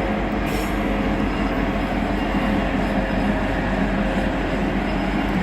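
Freight train passing close by: a steady rumble of wheels on rail with a continuous low hum.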